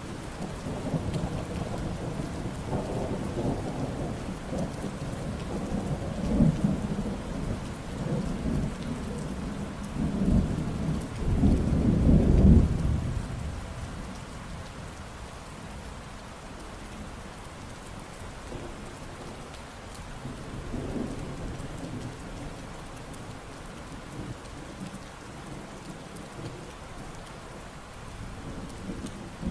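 Steady rain falling, with a long low rumble of thunder through the first half that builds to its loudest about twelve seconds in and then fades away; a smaller rumble comes near twenty seconds in.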